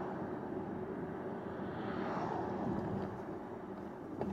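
Steady road and tyre noise inside the cabin of a VW ID4 electric car driving at just under 30 mph, swelling slightly about two seconds in.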